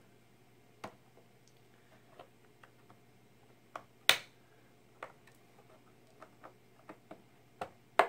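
Clips of a TiVo Bolt's white plastic cover clicking as a corner is pried up by hand, with one sharp snap about four seconds in, the sign of a corner clip coming loose, and a scatter of lighter plastic ticks.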